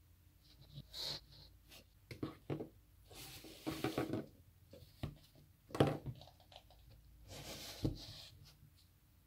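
Kinetic sand being worked by hand with plastic tools and moulds: soft scraping and crumbling stretches broken by a few sharp taps, the loudest tap about six seconds in.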